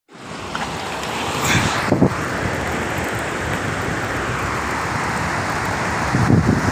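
Steady rushing of muddy floodwater pouring across a road during a downpour, with wind buffeting the microphone near the end.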